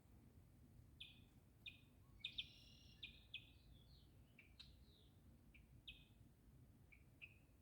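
Blackbirds calling faintly: a string of short, high calls, bunched together in the first half and then more spaced out.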